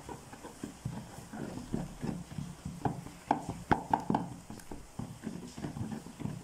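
Cake batter being beaten by hand in a plastic bowl: an uneven run of wet slaps and knocks against the bowl, with a few sharper clacks about three to four seconds in.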